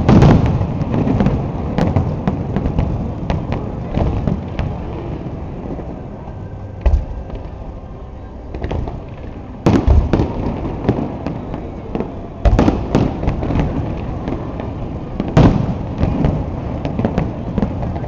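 Aerial fireworks shells bursting: a string of loud booms, the biggest at the start and about ten, twelve and fifteen seconds in, with a dense run of smaller pops and rumble between them.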